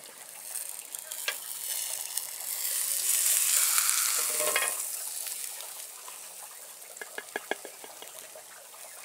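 Sweet potato mash sizzling in hot butter in a cast-iron skillet as a spatula scrapes under it and lifts it out. The sizzle swells about three seconds in and then fades, followed by a few light knocks near the end.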